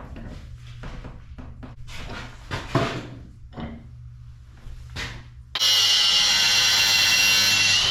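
Light knocks and rubbing of metal pieces being handled over a steady low hum, then about five and a half seconds in a power grinder starts abruptly and runs loud and steady with a high whine, grinding the metal.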